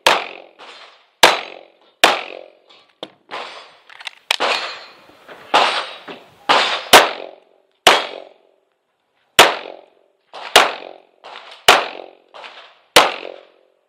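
A stage run of 9mm pistol shots from a Tanfoglio Stock 2 Xtreme, fired at uneven spacing of about one or two a second. Each sharp crack has a short echo, and there is a pause of about a second and a half near the middle.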